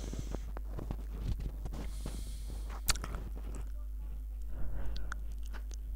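Computer keyboard being typed on: a run of irregular light key clicks, with a sharper click about three seconds in, over a steady low electrical hum.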